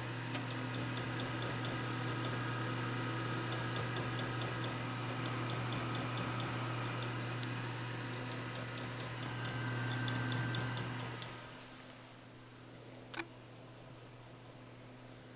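WD Caviar Blue 1 TB SATA hard drive spinning with a steady low hum and an irregular run of sharp ticks, several a second, the crunching, extraneous knock heard while it is formatted. It is a sign of a failing drive with many slow and unreadable sectors. About eleven seconds in the hum and ticking die down, and one sharp click follows a couple of seconds later.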